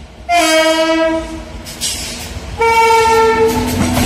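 WAP-7 electric locomotive sounding its air horn in two blasts of about a second each, the second louder. Near the end the noise of the train running past close on the track takes over.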